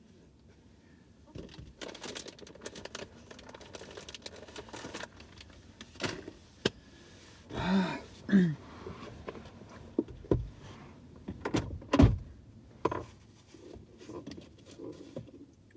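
Close-up handling noises: a run of clicks, knocks and thumps, the loudest about ten and twelve seconds in, with two short pitched sounds about eight seconds in.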